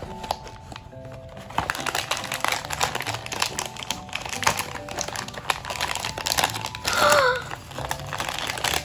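Cardboard blind box being torn open and its packaging handled: a dense run of crinkling and rustling that starts about a second and a half in, over soft background music. A short excited child's exclamation comes near the end.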